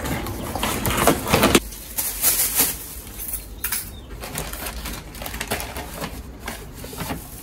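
Plastic and paper bags rustling and crinkling as items are handled and packed into them, in irregular bursts that are heaviest in the first second and a half.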